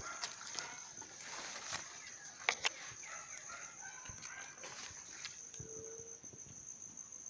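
A steady high-pitched insect drone, with footsteps crunching on leaf litter and a few sharp twig snaps. A short animal call sounds about three-quarters of the way through.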